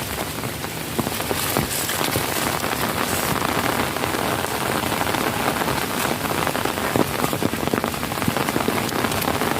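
Steady rain falling, with many small, close drop hits ticking through it.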